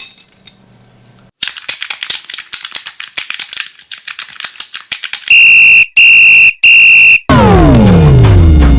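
A run of separate sound effects: a burst of rapid, irregular clicking, then three loud electronic alarm beeps of equal length, then a loud tone sliding steadily down in pitch, like a power-down.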